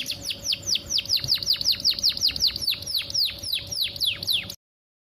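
Female canary in breeding condition calling to males: a fast, even run of short downward-sweeping chirps, about six a second, that cuts off abruptly near the end.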